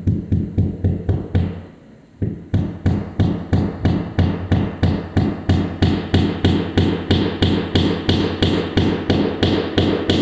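Hammer tapping a wall anchor into a drilled hole: quick, light, even blows about four a second, with a short break about a second and a half in before the tapping goes on.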